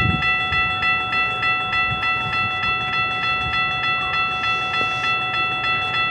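Railroad crossing bell ringing at an active level crossing, rapid even dings a little over two a second over a steady ringing tone, with a low rumble underneath.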